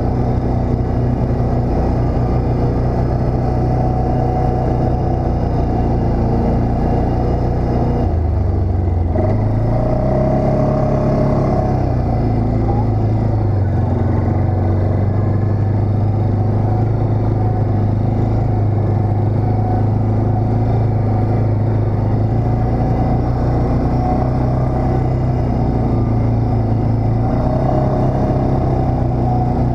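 ATV engine running under way. The engine speed drops briefly about eight seconds in, then picks up and holds steady.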